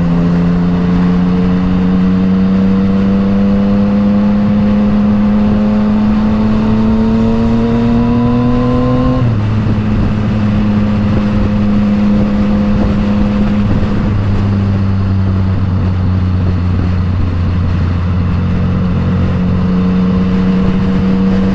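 Yamaha MT-09's three-cylinder engine with an Akrapovič exhaust, ridden under way: the revs climb steadily for about nine seconds, drop sharply at an upshift, then hold steady before rising a little again near the end.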